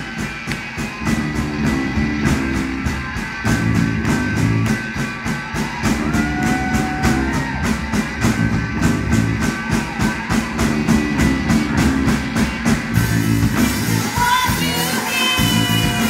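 Live rock band playing: electric guitars and keyboard over a steady beat of sharp ticks, about four a second, which drops out about thirteen seconds in. A woman's singing voice comes in briefly around six seconds and again near the end.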